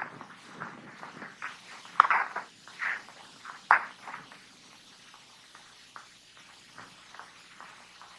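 Footsteps scuffing and crunching over rocky ground in an irregular series, with a few louder steps about two to four seconds in, then growing fainter.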